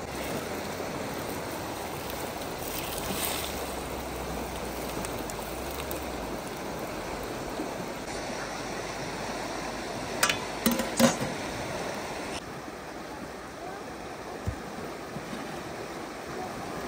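Steady rushing of running water, like a stream, with a few sharp clinks of dishes or utensils a little past halfway.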